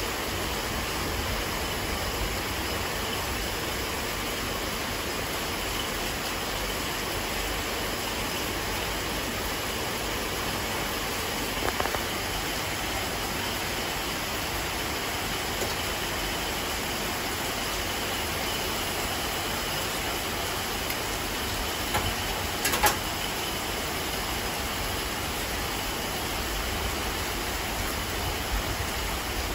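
Motorcycle wheel spinning on an electronic wheel balancer: a steady mechanical whir and rumble, with a few light clicks about a third of the way in and again about three quarters through.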